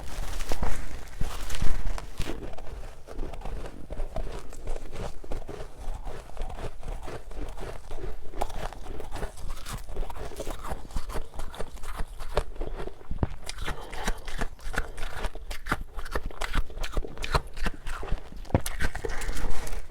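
Close-up crunching and chewing of soft freezer frost: a dense, continuous crackle of small icy crunches, with louder bites in the first two seconds and again near the end.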